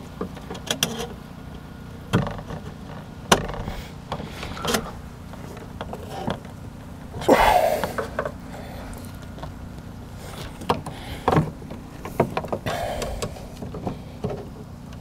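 Screwdriver prying at the window-glass clips inside a Jeep Grand Cherokee's front door, making scattered clicks, taps and knocks against the door's plastic and metal, with one louder, longer scrape about halfway through. It is the glass being worked free of the window regulator's clip.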